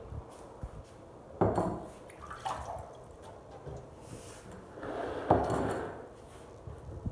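Kitchen handling sounds: a glass bowl set down on the countertop and wet lettuce leaves handled in a plastic bowl, with water dripping. Two louder knocks come about a second and a half in and about five seconds in.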